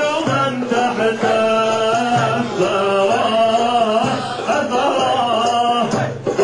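Male voices singing and chanting a Sufi hadrah dhikr, a melodic line that bends up and down over held lower notes.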